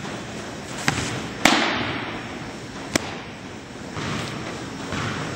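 Softball fastball smacking into a catcher's leather mitt about one and a half seconds in, with a long echo in the indoor hall. A light click comes just before it, and a sharper snap about three seconds in as the returned ball is caught in the pitcher's glove.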